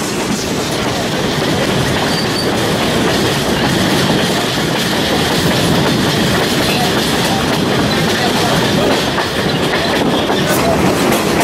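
Steady, continuous rumble and rattle of a moving vehicle in motion.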